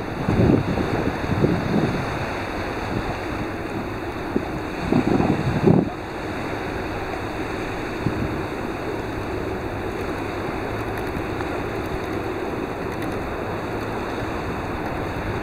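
Wind buffeting the microphone in gusts for about the first six seconds, then a steady rush of wind over choppy sea.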